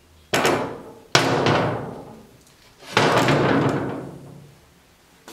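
Heavy cast-iron steering spindles set down on a steel-topped workbench: three loud clunks, one just after the start, one about a second in and one about three seconds in, each ringing out over a second or so.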